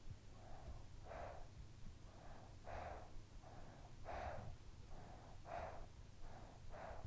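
A sleeping child breathing softly and evenly, about one breath every one and a half seconds. Each breath is a quieter in-breath followed by a slightly stronger out-breath.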